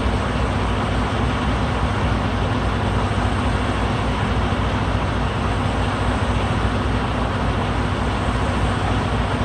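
Heavy diesel engine running steadily at a constant speed, a continuous low drone with no rock impacts heard.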